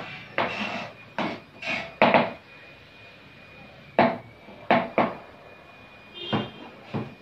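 Kitchen knife chopping vegetables on a cutting board: sharp, uneven knocks of the blade hitting the board, pausing for about two seconds midway before the chopping resumes.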